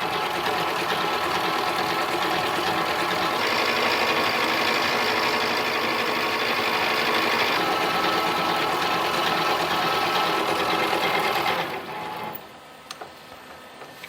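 Mini lathe running under power and taking a 12-thousandths cut in 6061 aluminum: a steady motor and gear whine with the cutting hiss, louder and brighter for a few seconds in the middle. The lathe stops about twelve seconds in, leaving a few light clicks.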